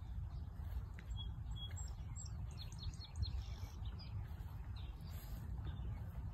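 Wind rumbling on the microphone, with small birds chirping throughout; a quick run of short, high, falling chirps about two and a half to three seconds in.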